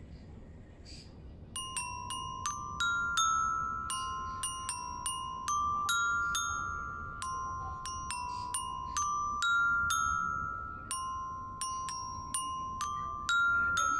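Children's glockenspiel with colour-coded metal bars struck with two mallets, playing a slow melody of single notes that stay close together in pitch. The notes start about a second and a half in and each rings on into the next.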